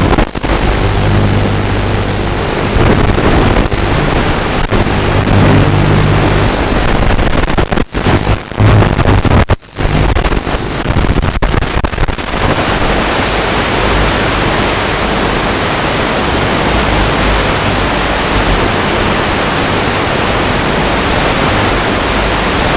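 Audio of an analog FPV video link from a Walkera F210 quadcopter. A buzzing hum from the motors sits over loud receiver hiss and steps in pitch with the throttle. Around eight to ten seconds in the signal breaks up with sharp dropouts, and from about twelve seconds on only a steady static hiss remains, with the quad down in the bushes.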